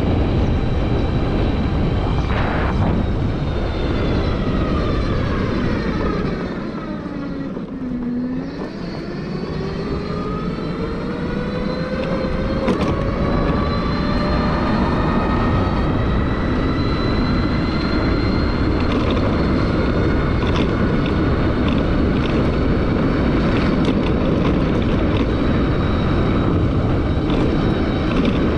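Suzuki e-Lets electric scooter riding, its motor whine over wind rush on the microphone. The whine falls in pitch as the scooter slows almost to a stop about eight seconds in, then rises again as it speeds back up and holds steady for the rest of the ride.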